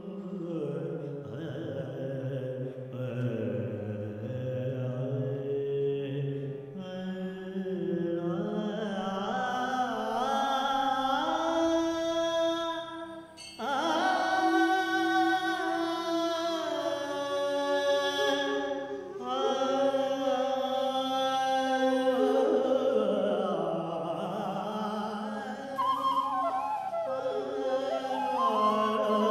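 Male Carnatic vocalist singing a slow opening passage in long held notes that glide between pitches, with a brief pause about 13 seconds in.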